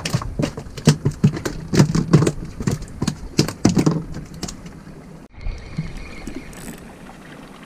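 A freshly landed hamour (grouper) thrashing on the boat: a fast, irregular run of slaps and knocks for about five seconds. The sound then cuts off abruptly to a quieter, steady background.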